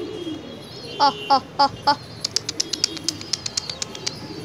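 Domestic pigeons cooing softly. About a second in come four loud short calls, then a rapid run of about fifteen high chirps, around eight a second.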